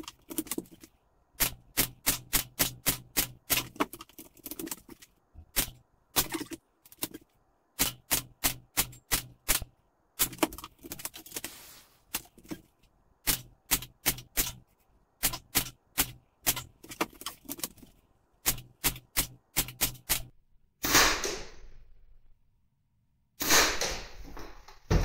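Strings of sharp airgun shots, several a second with short pauses between strings, fired at a pressurised air tube that does not burst. Two short rushes of noise come near the end.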